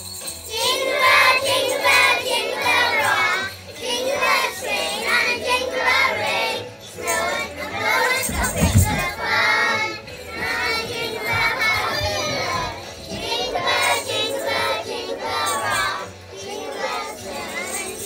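A group of young children singing a Christmas song together over a backing track with a steady bass line. A dull thump about eight and a half seconds in.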